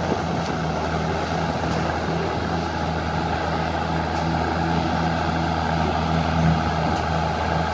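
Engine of a vintage Oliver farm tractor running steadily with a low, even beat.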